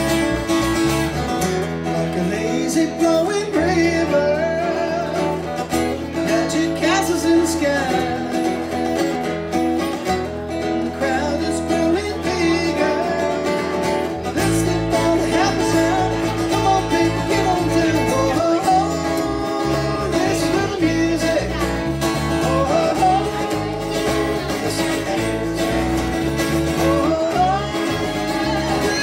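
Live country-style song on acoustic guitar and electric bass guitar, amplified through PA speakers, with a man singing. The bass line grows fuller about halfway through.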